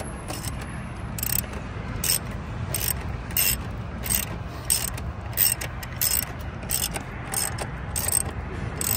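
Ratchet wrench being worked in short strokes, a quick burst of clicks on each return stroke, roughly one and a half a second, over a steady low rumble.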